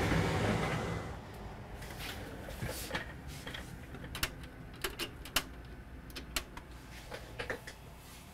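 Handling noises: a brief rustle, then scattered light clicks and knocks as a USB flash drive with wires soldered to its connector is plugged into a computer.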